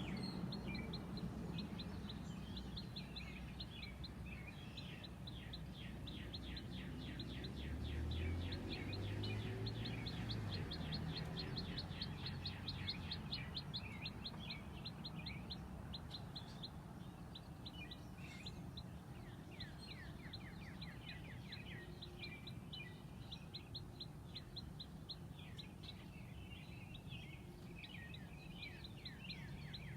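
Newly hatched chicken chick peeping: long runs of rapid, short, falling chirps, broken by a few pauses. The chick is still wet.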